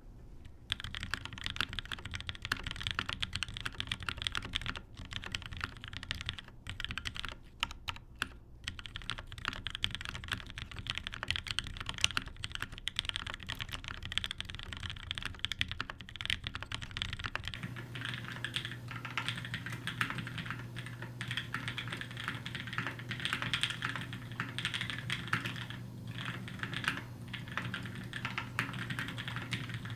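Continuous fast typing on a custom mechanical keyboard: Ocho Cuatro 2 XL with a top-mounted aluminium plate, DCS keycaps and lubed frankenswitches (H1 bottom, Cherry top, Average Joe stem) on heavy 150 g springs. The typing starts about half a second in; a little over halfway through, the recording switches to a camera microphone and a steady low hum joins the key clicks.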